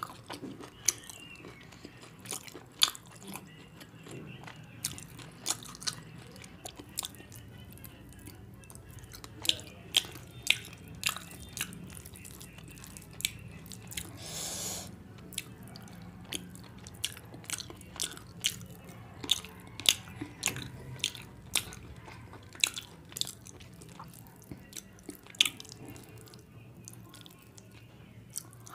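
Close-miked mouth sounds of a person eating pulao and curry by hand: soft chewing with many sharp lip smacks and clicks at irregular intervals, and one short hissing breath or slurp about halfway through.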